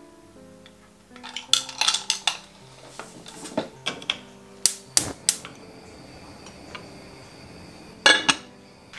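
Cookware clinking and knocking in several quick clusters, the loudest pair of clanks near the end, over soft background music.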